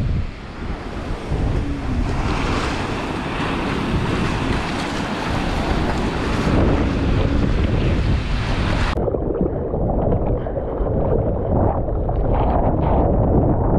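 Ocean water and wind rushing over an action camera's microphone as a surfer wades out and paddles, with water splashing close to the lens. About nine seconds in, the sound abruptly turns duller and muffled.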